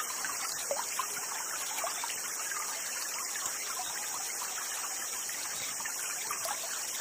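Small stream trickling steadily, with a steady high-pitched hiss over it.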